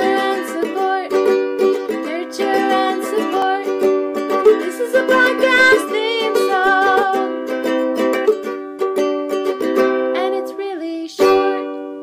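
Intro theme music played on plucked strings, with a brief pause and a final chord near the end.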